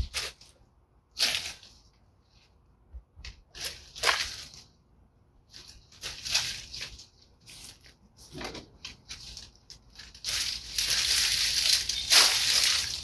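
Long-handled loppers cutting through dry rose canes: a series of short crunching snips about a second or two apart. From about ten seconds in, a denser, steadier rustle and crackle of dry canes and leaves.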